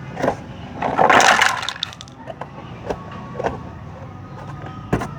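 Plastic toy parts and packaging being handled: scattered clicks and knocks, with a louder rustling crackle about a second in.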